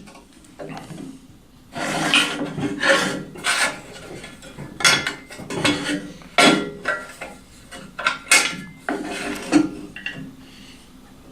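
Workshop handling sounds: irregular knocks, clinks and scraping of wood and tools being moved and adjusted on a bench.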